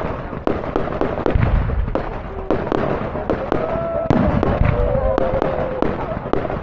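Fireworks display going off: rapid crackling and banging throughout, with a heavier low boom about a second and a half in.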